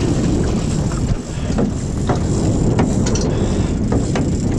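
Boat engine running steadily at sea, with wind buffeting the microphone; a few short, light clicks sound over it.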